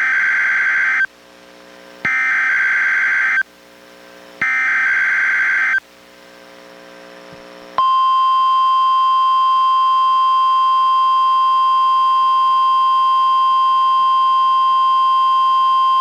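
NOAA Weather Radio Required Weekly Test signals: three short bursts of SAME header data tones, about a second apart, then the steady single-pitch NWR warning alarm tone, held for about eight seconds.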